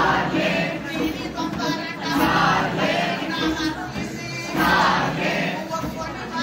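A group singing a folk song for rain in chorus, in short phrases that recur about every two and a half seconds.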